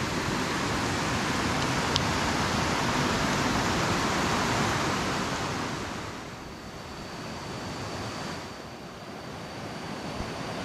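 River water rushing over rocks in a steady wash that eases for a couple of seconds past the middle and then comes back up. A faint, thin high tone joins in from about six seconds in.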